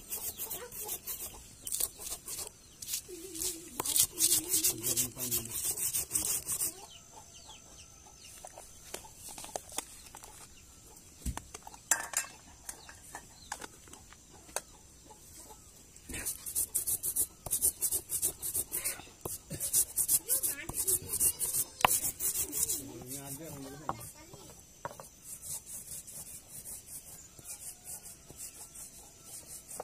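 A round hand-held grinding stone rubbed back and forth over a flat stone slab (a Nepali silauto and lohoro), crushing chillies and spices in quick, repeated scraping strokes. There are two spells of grinding, with a quieter pause from about 7 to 16 seconds in.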